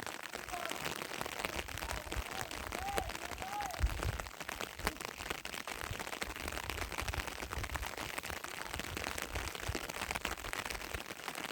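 Heavy rain falling steadily, a dense hiss full of fine patter, with gusty low rumbles of wind on the microphone. A few faint short high calls come through the rain in the first three seconds.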